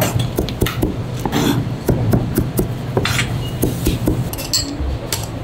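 Kitchen work: plates, bowls and utensils clinking and knocking irregularly over a steady low hum.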